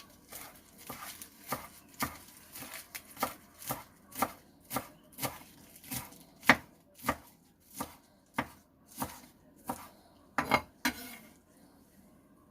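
Knife chopping kale on a cutting board, a steady run of cuts about two a second that stops near the end.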